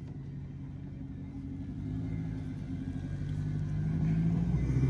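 A car engine running at low speed with a steady pitch, growing steadily louder.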